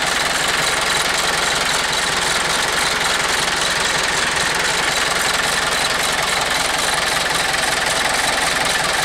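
Yanmar EF494T tractor's four-cylinder diesel engine idling steadily, heard close up at the open engine bay.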